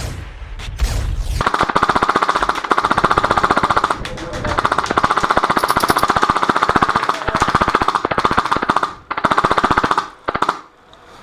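Custom HPA-powered G&P M249 Para airsoft light machine gun firing long full-auto bursts, a fast, even rattle of shots. The firing starts about a second and a half in, pauses briefly near the middle, stops near the end, and one short last burst follows.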